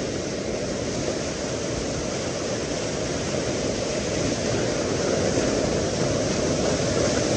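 Waterfall pouring over rocks right beside the microphone: a steady rush of falling water that grows slightly louder over the last few seconds.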